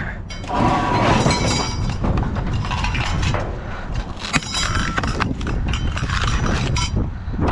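Glass clinking and rattling with irregular knocks, as the glass shades and bulbs of a ceiling fan are handled and pulled off, over a steady low rumble.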